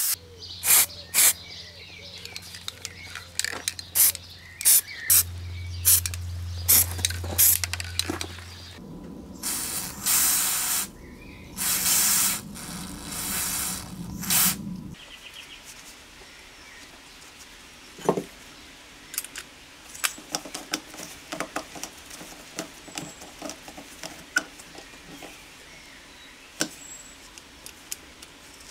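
Aerosol can sprayed through its red extension straw onto a small carburetor part in several hissing bursts, about a third of the way in. Before and after come light clicks and taps of small metal parts being handled.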